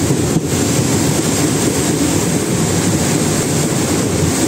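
Steady rumble of a moving train crossing a bridge, heard from the open doorway, with wind buffeting the microphone and the rush of churning water below.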